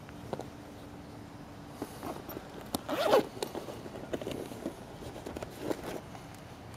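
Zipper on the fabric storage bag of an inflatable pontoon boat pulled in one short rasping stroke about three seconds in, amid handling rustles and light clicks.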